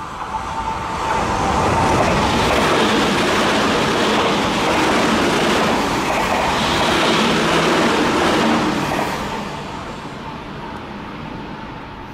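A Tokyu stainless-steel electric commuter train passes through a station at speed without stopping. The wheel-on-rail noise builds over the first two seconds, holds, and fades away after about nine seconds.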